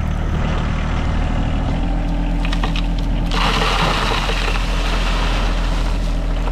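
John Deere 1023E sub-compact tractor's three-cylinder diesel running steadily while its front-loader bucket tips. About three seconds in, gravel pours out of the bucket onto a corrugated plastic culvert pipe in a loud, steady rush that lasts to the end.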